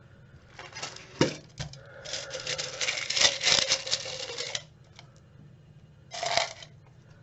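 Small metal charms rattling and clinking in a round metal tin as it is opened and tipped out onto a cloth: a single click about a second in, a dense clatter lasting a couple of seconds in the middle, and a shorter rattle near the end.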